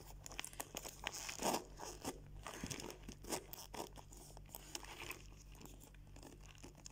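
Handling a canvas handbag: irregular small clicks and rustling from its metal zipper pulls and strap hardware being fiddled with, with a couple of louder clatters early on and around the middle.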